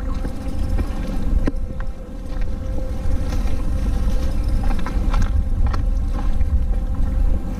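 Wind rumbling on the microphone, with a steady engine hum, likely a boat out on the water, underneath and a few light knocks.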